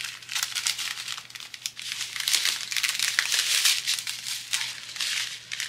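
Plastic packaging of diamond-painting drill bags crinkling and crackling as it is handled and folded, in a continuous run of irregular rustles.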